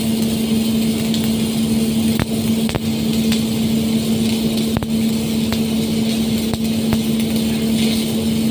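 Welding machine running with a steady hum, along with a hiss and scattered sharp ticks from the welding work.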